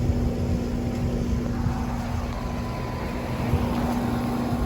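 Outdoor heat pump condensing unit running: a steady compressor hum under the low whoosh of its fan.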